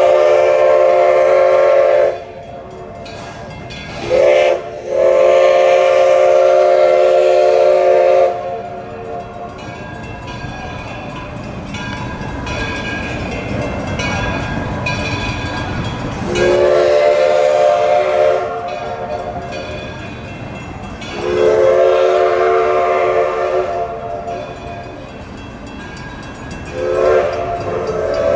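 Steam locomotive whistle blowing a series of blasts, each a chord of several tones at once. There is a long blast at the start, a short toot about four seconds in that runs straight into a long blast, then three more long blasts about 16, 21 and 27 seconds in. The train's running rumble and hiss carry on between the blasts.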